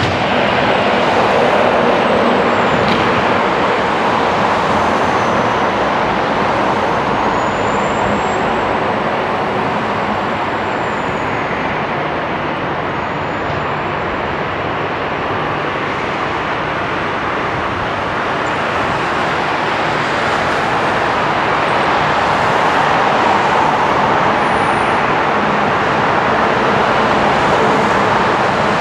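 Boeing 777F freighter's GE90 jet engines running at taxi power as it taxis: a steady rushing roar with a faint high whine that rises and falls.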